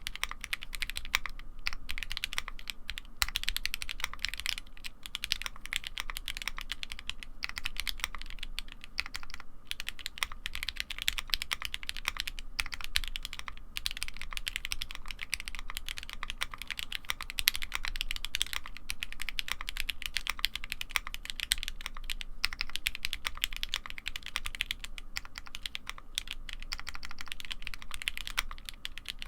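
Continuous typing on a Ginkgo65 custom mechanical keyboard with lubed and filmed Gateron CJ linear switches, a PC plate and double-shot ABS keycaps: a dense stream of keystroke clacks broken by a few brief pauses.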